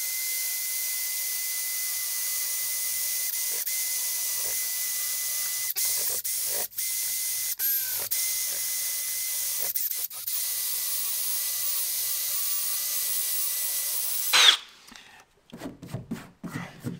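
Milwaukee drill spinning a rubber eraser wheel against a truck's painted body panel, rubbing off badge adhesive: a steady whine with a hiss, dipping briefly a few times. It cuts off suddenly near the end, and a hand brushes across the panel.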